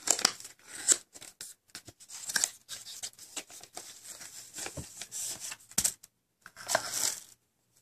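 Clear plastic protector sheet on an Urban Decay Vice eyeshadow palette box crinkling and peeling away as the box is handled: irregular short crackles with brief pauses, the loudest near the start, about a second in and about two-thirds of the way through.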